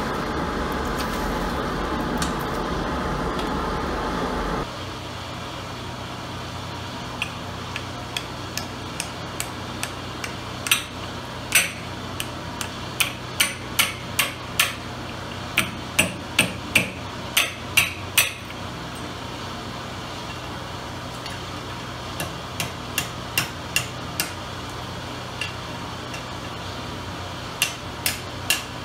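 A coal forge fire roars for the first few seconds, then cuts off. A hand hammer then strikes red-hot rebar as it is bent around a pipe set in the anvil: a few light taps, then a run of hard blows about two a second, then two shorter groups of strikes.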